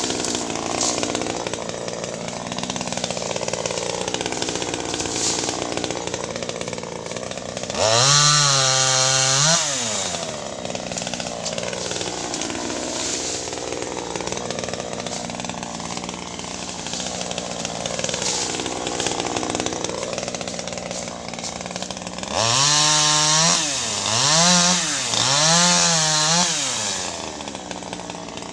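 Small 25cc top-handle chainsaw idling, revved up once about eight seconds in and held for about two seconds, then revved three times in quick succession near the end.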